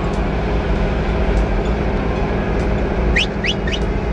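Semi-truck engine and road noise, a steady low drone. About three seconds in come three short, quickly rising high chirps.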